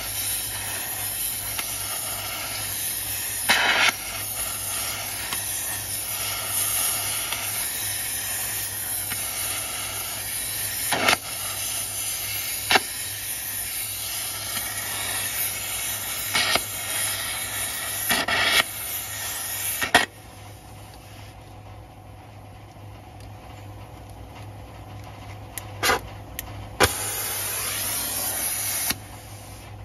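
Oxy-fuel gas torch flame hissing steadily as it heats a seized truck wheel nut, with several sharp snaps along the way. About two-thirds through, the flame is shut off and the hiss drops away; it comes back near the end.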